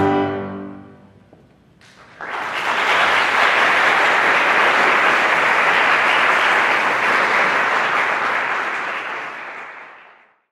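The last chord of a men's (TTB) choir dies away in the hall's reverberation. After a short pause, audience applause breaks out suddenly, holds steady, then fades away near the end.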